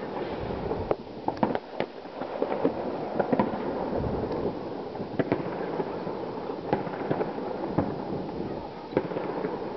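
Fireworks going off at a distance: irregular sharp bangs, sometimes several in a second, over a continuous crackling rumble of far-off bursts.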